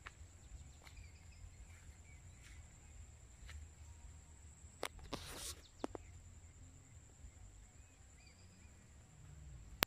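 Faint outdoor ambience by a lake: a low steady rumble with a few faint bird chirps, a thin high steady tone, and a brief rustle about halfway through.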